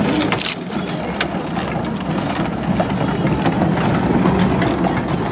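A steady low rumble with scattered light clicks and taps.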